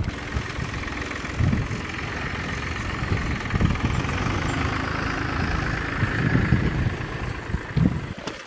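Wind buffeting the microphone in gusts over the steady running of a tractor engine.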